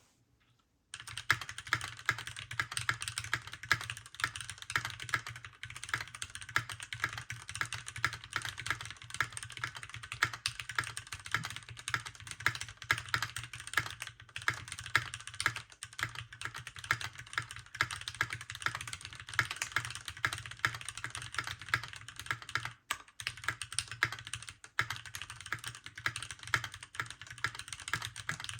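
Keychron Q1 mechanical keyboard with factory-lubed Gateron Phantom Red linear switches, an aluminum plate, double-shot ABS keycaps, and tape and foam mods, typed on quickly and continuously. The keystrokes start about a second in, with a couple of brief pauses near the end.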